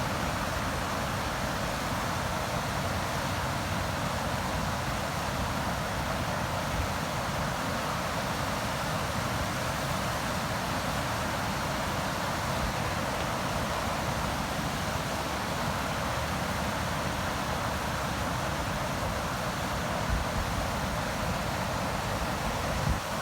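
River water flowing: a steady rushing noise.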